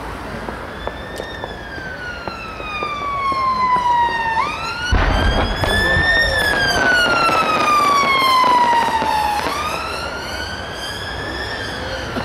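Emergency vehicle siren wailing: its pitch climbs quickly, then glides slowly down, about every five seconds. A low bang with crackling comes about five seconds in, where a firework bursts.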